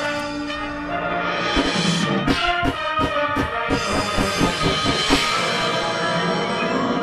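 High school marching band playing: the brass holds full chords, and about two seconds in the percussion joins with a run of quick, regular drum strikes under them.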